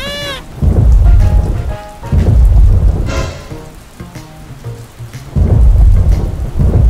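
Thunderstorm: rain falling steadily, with three loud, long rolls of thunder, about half a second, two seconds and five and a half seconds in.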